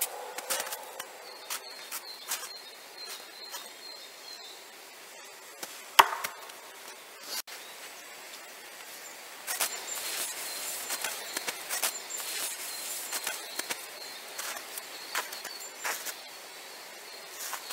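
KA-BAR combat knife thrown into a tree trunk, striking once with a single sharp thunk about six seconds in. Small scattered clicks are heard around it, along with a high, thin repeated chirping.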